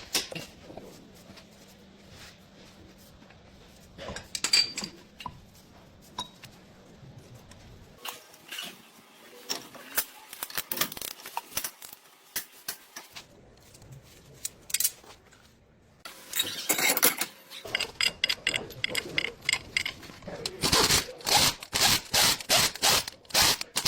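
Metal hand tools clicking and clinking against truck brake parts, in scattered knocks at first, then near the end a run of sharp, evenly spaced clicks, about two to three a second.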